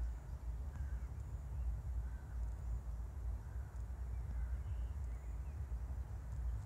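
Faint short bird calls, repeating roughly once a second, over a steady low rumble.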